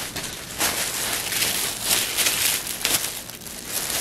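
Plastic mailer bag and plastic wrapping crinkling and rustling as a package is pulled open by hand, in uneven surges.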